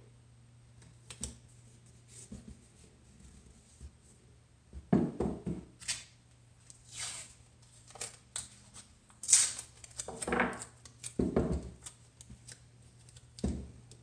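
Blue painter's tape being peeled, torn and handled, a string of irregular short rips and rustles.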